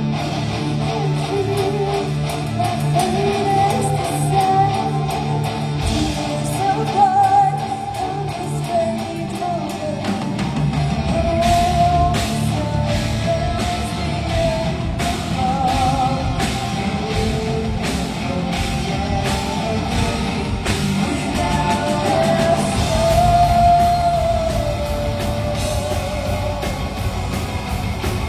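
Heavy metal band playing live: electric guitars, bass and drum kit under a sung melody with wavering held notes. The drums fill in with steady strokes about ten seconds in.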